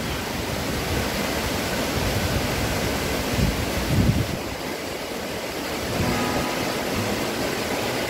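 Waterfall and rocky mountain stream rushing, a steady roar of falling water, with a couple of low bumps about three and a half and four seconds in.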